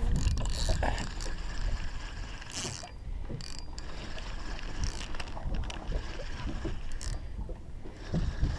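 Spinning reel being cranked to bring in a hooked fish, its gears whirring and clicking with each turn of the handle.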